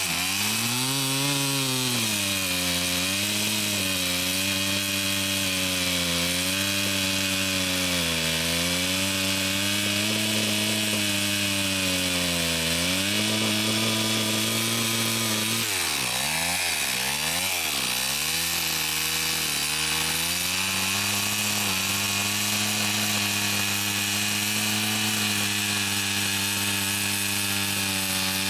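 STIHL MS 260 two-stroke chainsaw running under load while cutting through a log, its engine pitch rising and falling in waves as the chain bites. In the middle the pitch swings quickly up and down several times, and over the last several seconds it holds steady.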